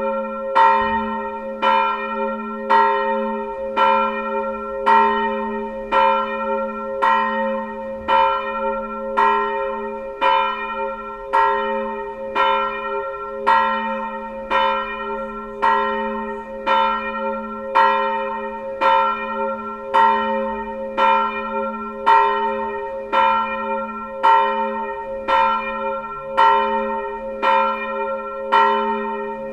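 A single church bell, bell 2 of the tower, tuned to A-sharp (Ais1), ringing alone in steady, evenly spaced strokes. Its low hum and partials sound on between the strikes.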